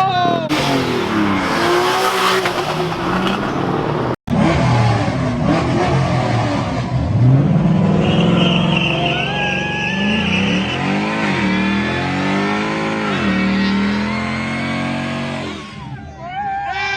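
Car engines revving hard under full-throttle acceleration, their pitch climbing and dropping again through several gear changes. A high squeal lasts a couple of seconds in the middle.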